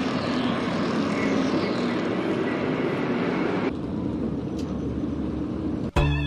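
A field of NASCAR stock cars running at racing speed, a steady, dense V8 engine din that changes abruptly about halfway through. Music cuts in suddenly near the end.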